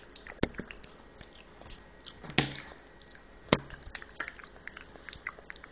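Hard plastic toy animal figurines being handled and tapped: a scatter of light clicks with three louder knocks, about half a second, two and a half and three and a half seconds in.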